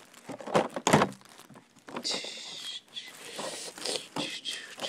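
Cardboard-and-plastic blister pack of a toy monster truck being handled and turned over: scattered knocks, taps and light crinkles.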